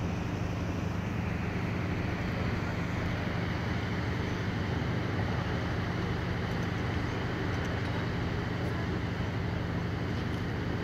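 Motor ship's engine running steadily with a low hum, over the rush of churning water.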